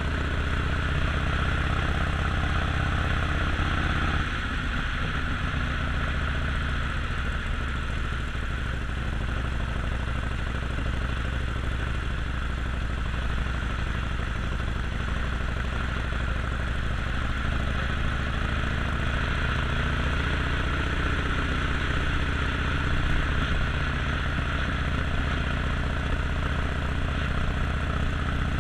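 Harley-Davidson Sportster Forty-Eight's 1200 cc air-cooled V-twin engine running steadily; its note changes about four seconds in.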